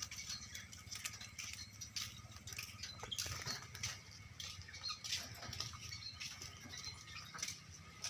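Caged lure birds moving about: scattered light taps, scrabbles and wing flutters, with a few faint chirps, over a steady low background hum.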